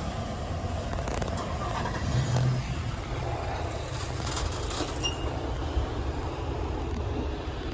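Steady low rumble of a car on the move: road and engine noise, with a few faint clicks.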